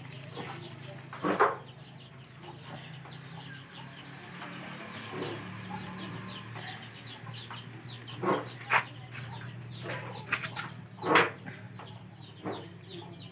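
Chickens clucking, with a few short, louder calls scattered through, over a steady low hum.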